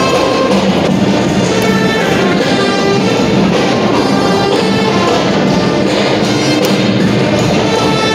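Loud, steady music with brass instruments and percussion.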